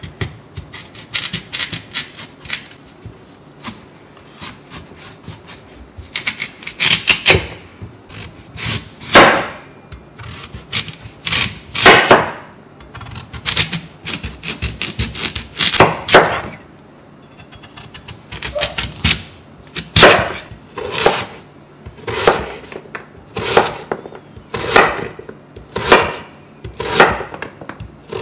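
Chef's knife cutting a raw sweet potato on a wooden cutting board, one sharp stroke after another. The strokes are sparse at first, then settle into a steady run of cuts a little over one a second in the second half.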